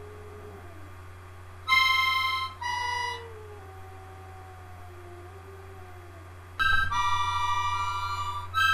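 Harmonica playing: two short chords about two and three seconds in, then a longer held chord from about six and a half seconds that changes to another near the end. Beneath it, a faint wavering howl from a boxer dog slides slowly down in pitch.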